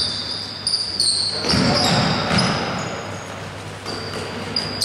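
Basketball shoes squeaking again and again on a hardwood court in short, high squeaks, with a basketball bouncing on the floor in a cluster of dull thuds about two seconds in.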